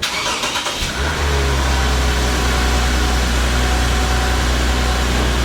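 2003 Honda Civic's 1.7-litre four-cylinder engine starting up. After about a second of noise it settles into a steady idle.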